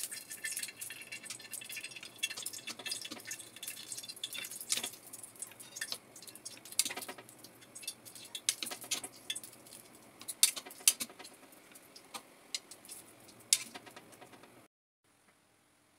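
Stuffed intestine sausages (mumbar) sizzling in a frying pan: a steady hiss with many sharp crackles and pops, densest at first and sparser later, with a few louder clicks as metal tongs turn them. The sound cuts off abruptly near the end.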